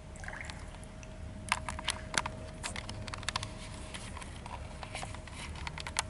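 Swimming pool water sloshing and dripping close by, heard as a run of sharp, irregular ticks and small splashes that start about a second and a half in, over a steady low hum.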